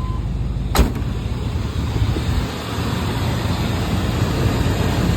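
A 1988 Chevy Monte Carlo SS's 5.0-litre V8 idling steadily just after a start, with one sharp knock a little under a second in.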